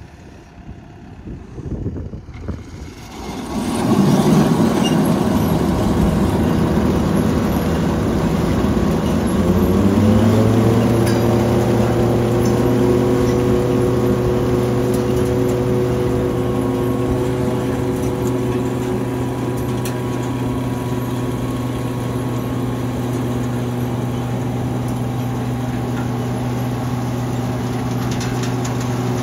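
An engine starting up and running: loud about four seconds in, its pitch dropping about ten seconds in and then holding steady.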